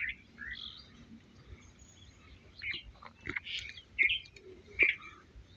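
Birds chirping in short, scattered calls, with a few faint sharp clicks in between.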